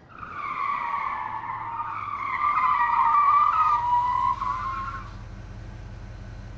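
Car tyres squealing in a long skid, the squeal wavering in pitch for about five seconds before it stops. A low steady hum remains after it.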